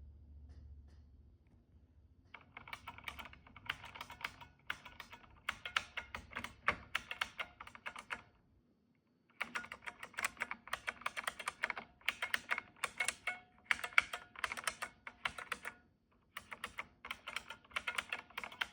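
A freshly restored IBM Model M buckling-spring keyboard being typed on in quick runs of loud clicky keystrokes. Typing starts about two seconds in and stops twice, each time for about a second.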